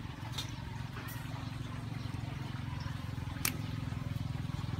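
A motor running steadily with a low, rapidly pulsing hum, with a few light clicks and one sharper click about three and a half seconds in.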